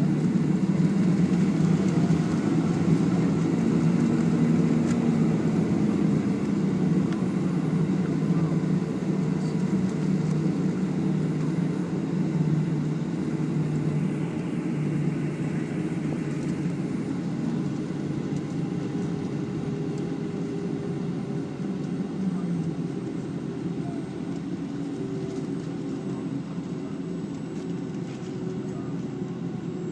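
Steady low rumble of a Boeing 757-200 on the ground, heard from inside the passenger cabin, easing off slightly over the half-minute.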